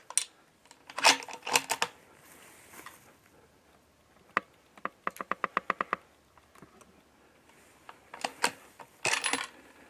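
Sharp mechanical clicks and knocks from handling gear close to the microphone, the loudest about a second in. A quick run of about ten small even clicks, roughly eight a second, comes near the middle.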